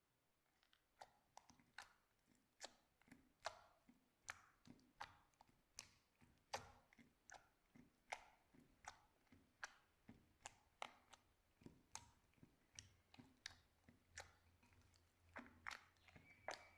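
Slime being pressed and worked by hand, giving a regular series of sharp, wet pops and clicks, about one and a half a second.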